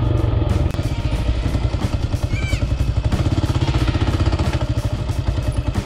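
Kawasaki KLR650 single-cylinder four-stroke engine running as the bike rides a dirt bush track two-up, with a steady fast beat of exhaust pulses.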